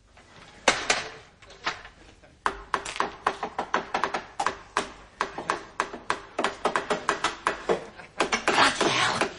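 A quick, uneven run of sharp clicks and knocks, about three or four a second. It starts with a single loud knock under a second in and settles into a steady run from about two and a half seconds, growing denser near the end.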